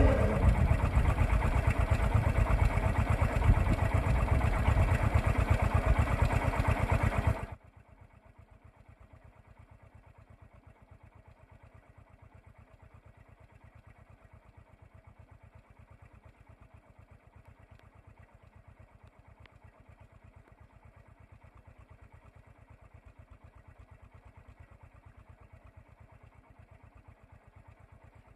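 A vehicle engine idling with a fast, even pulse. About seven seconds in it abruptly drops to a faint, muffled version of the same idle, which carries on steadily.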